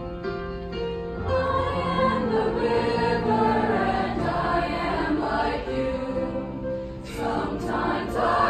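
Children's choir singing a slow song, with long held notes and changing chords.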